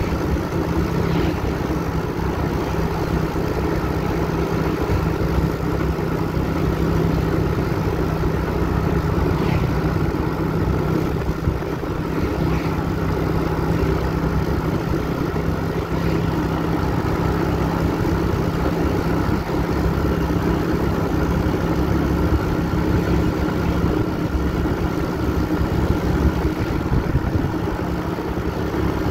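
A vehicle engine running at a steady pitch under way, a constant hum with no breaks or changes in speed.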